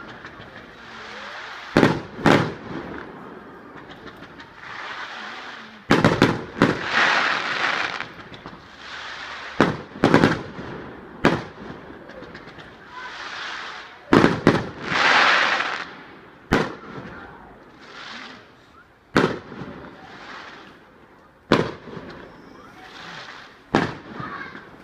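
Fireworks display: about a dozen sharp bangs of shells bursting overhead, a second or several apart, with hissing crackle between bursts.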